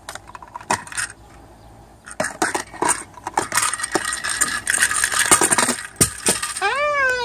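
A cockatoo working a small red plastic toy box with a strand of beads: sharp clicks and plastic-and-bead rattling, busiest from about two to six seconds in. Near the end comes one short pitched call that rises and then holds.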